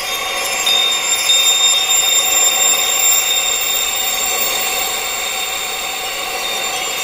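Electronic sound-therapy drone of many sustained high-pitched tones ringing together like held chimes, over a light hiss. A brighter high tone comes in within the first second.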